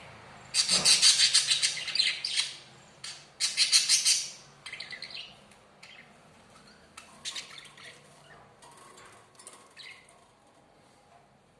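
Pet budgerigars chattering: two loud runs of rapid, harsh high chirps in the first four seconds, then quieter scattered chirps that fade out.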